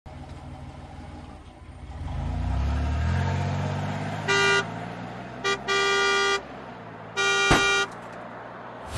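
Truck engine revving up as it pulls away, then the horn honks four times: a short toot, a quick blip, and two longer blasts.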